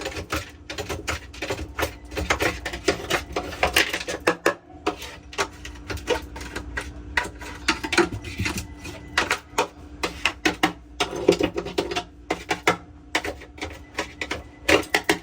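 Rapid, irregular clicking and knocking of hard objects being handled while a refrigerator is cleaned out, over a steady hum.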